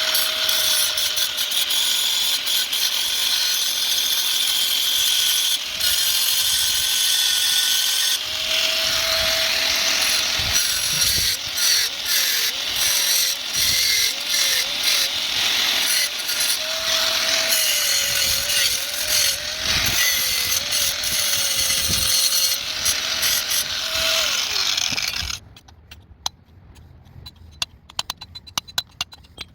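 Electric grinder running continuously against the exhaust pipe, grinding out rust and what the owner takes for weld blocking the oxygen-sensor bolt hole. Its whine dips and wavers as it bites into the metal, and it shuts off near the end, followed by a few faint clicks.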